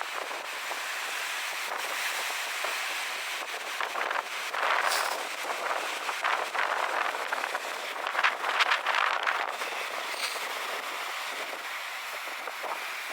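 Strong wind buffeting the microphone over sea waves surging and breaking on rocks, with two louder surges, about four seconds in and again around eight to nine seconds.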